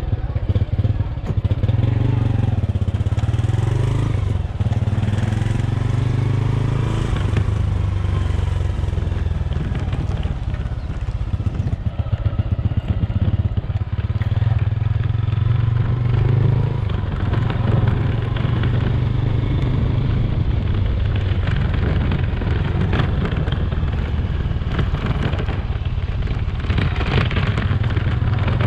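Small motorcycle engine running while being ridden, heard from the bike itself; the engine note rises and falls as the rider changes speed.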